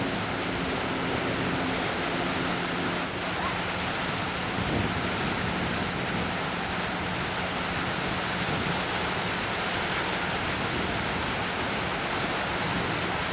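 Steady rushing of shallow surf and sea water, with water churned around wading horses' legs.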